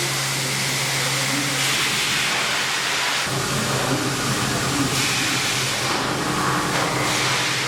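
Milling machine cutting a steel stamping die: a steady low machine hum under a hiss from the cut that swells and eases every second or two.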